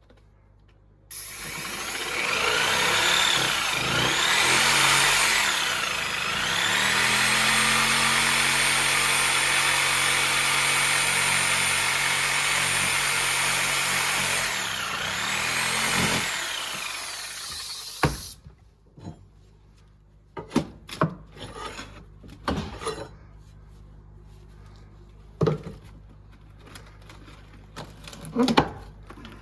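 Power saw cutting through wooden subfloor for about 17 seconds, its motor pitch dropping and recovering several times as the blade bites. After it stops, scattered knocks and clatter of wood being handled.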